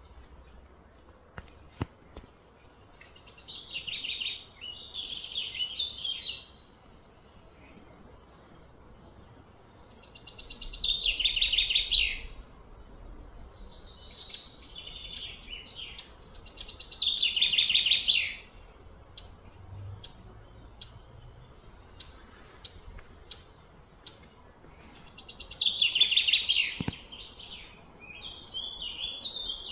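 Bird trills, each a couple of seconds long, sliding downward, building in loudness and then stopping. They repeat about every six to nine seconds.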